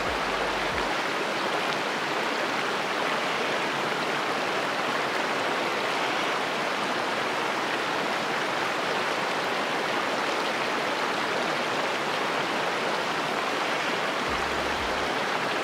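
Running water: the steady, unbroken rush of a mountain stream.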